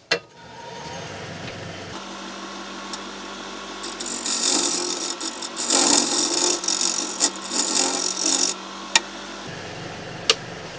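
Wood lathe switching on with a click and spinning a wooden bowl blank steadily at about 1,400 rpm. From about four seconds in, a hand-held turning tool cuts into the spinning blank for roughly four and a half seconds, a loud scraping rush as shavings fly; a sharp click comes near the end.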